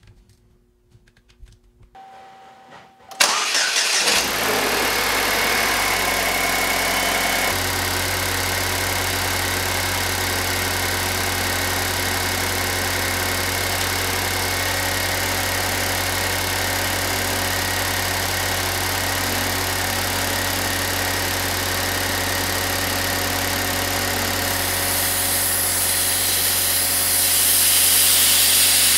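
Pontiac Solstice engine cranking and catching about three seconds in, running at a fast idle that settles to a steady idle a few seconds later. A hiss joins in near the end.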